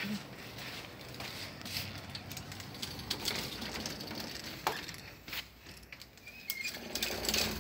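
Handling noise from a phone carried while walking: scattered clicks and knocks. Near the end come two short high squeaks as a door is opened.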